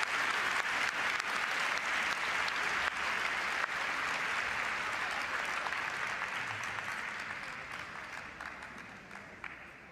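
Audience applauding, the clapping thinning and dying away over the last few seconds.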